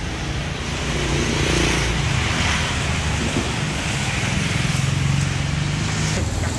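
Street traffic: engines of passing motorbikes and cars running, a steady road hum with no single event standing out.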